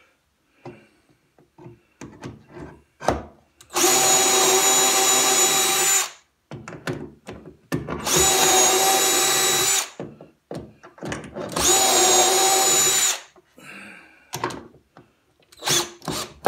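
Cordless drill boring shelf-pin holes through a shelf-pin jig into a cabinet side. It makes three steady runs of about two seconds each, with clicks of handling between them, then a few short bursts near the end.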